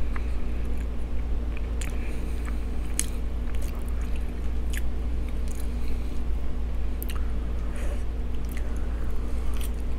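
Close-miked chewing of mouthfuls of loaded baked potato and sausage, with a few short clicks of a metal fork against the food and wooden board. A room fan hums steadily underneath.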